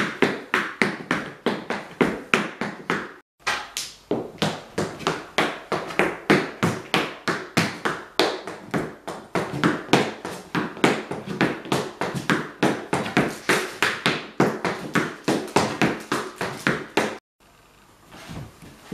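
Irish dance hard shoes beating a wooden floor in quick, even clicks and stamps of drill steps. The beating breaks off briefly a few seconds in and stops near the end.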